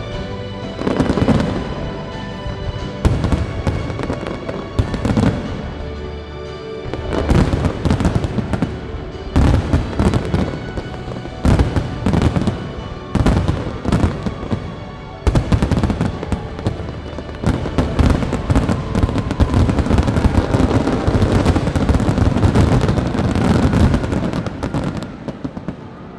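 Fireworks display: a rapid series of aerial shell bangs and crackles over music. The bursts grow into a dense, almost continuous volley from about fifteen seconds in, then die away near the end.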